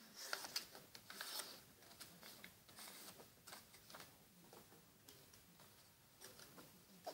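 Faint rustling and crinkling of a strip of white paper being folded and creased by hand. A cluster of crisp crackles comes in the first second and a half, then softer scattered ticks follow.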